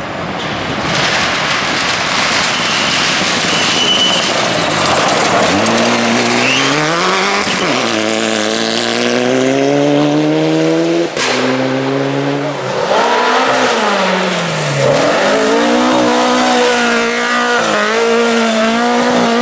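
Classic rally car engine pulling hard through the gears: the revs climb, drop at each gear change and climb again, with one sharp crack about eleven seconds in. A rushing road and tyre noise comes first.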